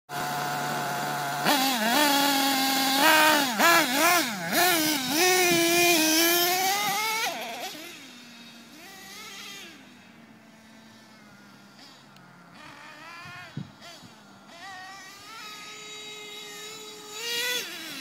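Nitro RC monster truck's small glow engine idling, then revving hard up and down in bursts as the truck takes off. It fades as the truck drives away across the field, then grows louder again near the end as it comes back.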